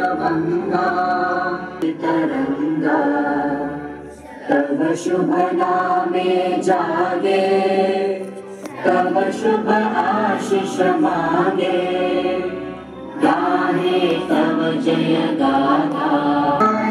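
A crowd of schoolchildren singing together in chorus, with short pauses between phrases about 4, 8½ and 13 seconds in.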